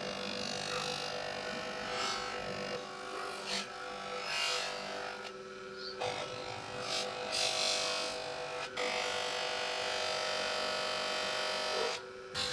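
Electric bench polishing motor running with a steady hum while a small steel vise part is pressed against its spinning polishing wheel, giving a hissing rub on top. The rub drops away briefly about five seconds in and again just before the end.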